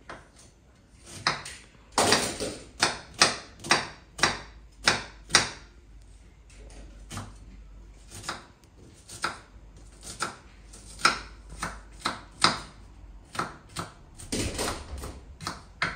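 Knife chopping on a cutting board: a run of sharp, uneven knocks, about two to three a second, with short pauses between runs.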